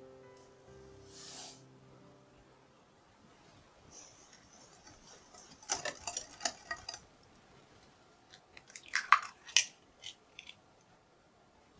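Wire whisk stirring flour and cocoa in a glass bowl: soft scraping with quick light taps of the wires against the glass. The taps come in two bursts about three seconds apart, the second louder.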